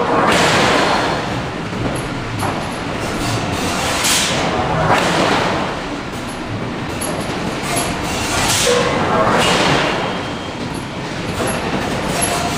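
Large hydraulic forging hammer at work on hot steel: a continuous loud industrial roar with surges of hissing noise about every four seconds.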